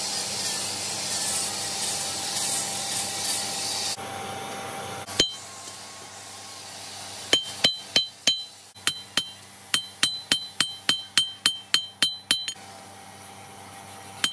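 A steady hiss for the first few seconds, then a hand hammer striking red-hot railway-scrap steel on an anvil while forging a keris blade: one strike about five seconds in, then a run of about fifteen ringing metal-on-metal strikes, roughly three a second.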